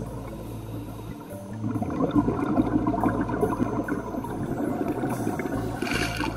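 Background music, with a short hiss near the end.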